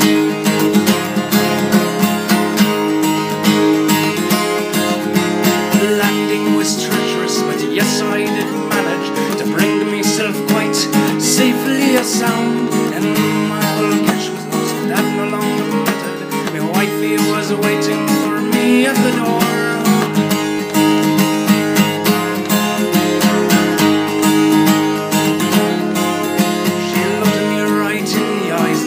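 Acoustic guitar strumming a steady instrumental passage of an Irish folk ballad, without singing.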